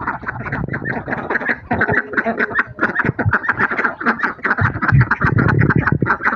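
A flock of domestic ducks quacking continuously, many calls overlapping in rapid succession.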